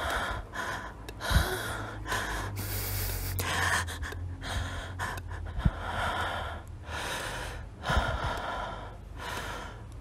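A person breathing heavily in and out, short gasping breaths about one to two a second, over a steady low hum, with a few soft knocks.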